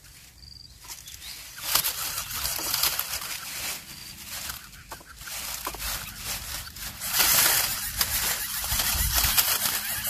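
Lesser coucal nestlings in a dry-grass nest making a raspy hissing noise, with rustling of the grass. It gets louder about two seconds in and again about seven seconds in, as the chicks gape and beg at the arriving parent.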